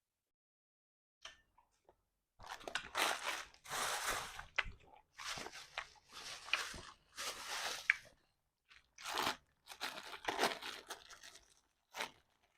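A person eating chicken feet, crunching and chewing the soft-boiled bones and cartilage in a run of short bursts with brief pauses between.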